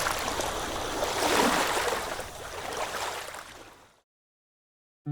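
Water rushing and splashing along a sailboat's hull under way, swelling and easing, then fading out to silence about four seconds in.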